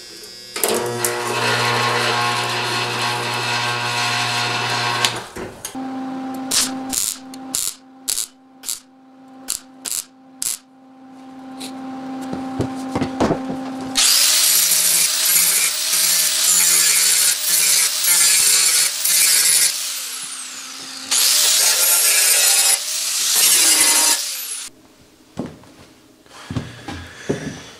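Corded power tools dressing a weld on sheet-steel body panel. A small motor runs steadily for a few seconds, then comes a spell of clicks over a steady hum. After that a grinder works the metal in two long, loud passes.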